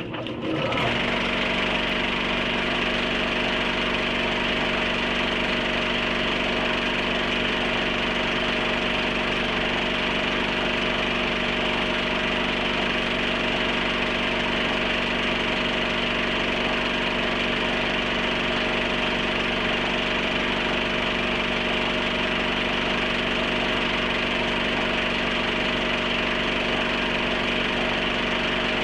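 Film projector running: a steady mechanical whir and clatter over a constant hum, starting abruptly and holding unchanged.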